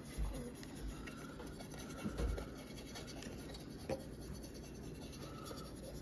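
Faint scratchy strokes of a paintbrush on a wooden birdhouse, with a few light knocks as it is handled.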